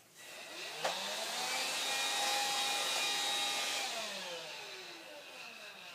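Vacuum cleaner motor switched on, spinning up with a rising whine, running steadily for about three seconds with airflow hiss, then switched off and winding down with a falling whine.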